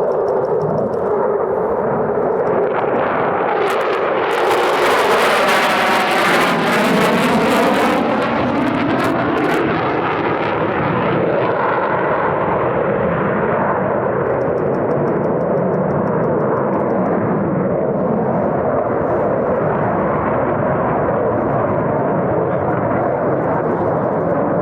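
Low-level jet flypast by an F-15E Strike Eagle's twin turbofan engines: a roar that swells to its loudest about five to eight seconds in, with a sweeping, phasing tone as the jet passes, then a steady, lingering roar.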